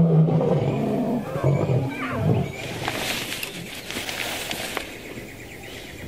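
Male lions growling and snarling as they fight, loudest in the first couple of seconds and then fading away.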